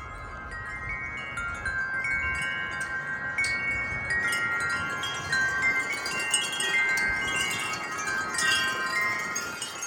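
Several wind chimes ringing in gusty wind, many overlapping struck tones that get busier and louder a few seconds in. A low wind rumble is heard in the first couple of seconds.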